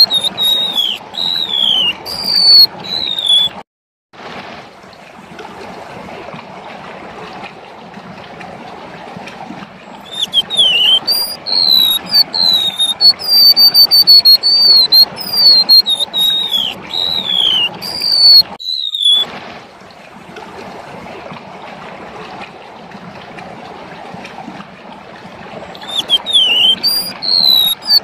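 Golden-bellied gerygone (remetuk laut) singing a run of high, thin whistled notes, many sliding downward, in three bouts separated by pauses filled with steady hiss. The sound cuts out completely for a moment twice, where a bout ends.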